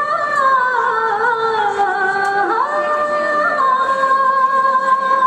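A high female voice singing long held notes with slow slides between them and a sharp upward step about halfway through. No clear beat or instruments are heard under it.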